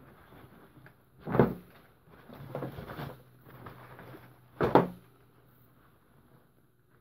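Muddy Levi's 501 denim jeans being handled in a plastic wheelie bin: two loud thumps, about a second and a half in and again near five seconds, with fabric rustling and scraping between them.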